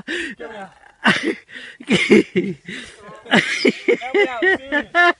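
People laughing hard: breathy, wheezing laughs, then a run of short repeated "ha" pulses about four seconds in.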